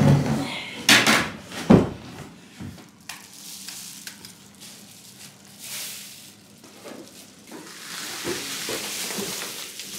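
Two heavy thumps about a second in as a large old wooden panel is laid down on the floor, then plastic bubble wrap crinkling and rustling as the wrapped panel is handled, growing louder near the end.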